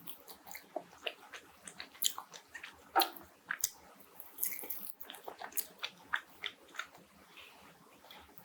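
Someone biting into and chewing crispy fried chicken wings, a run of irregular crunches.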